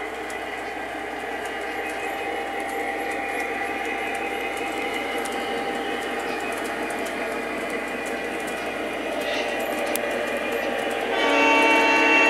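A Lionel model locomotive's onboard sound system playing its running sound, then a horn blast that starts suddenly and louder near the end.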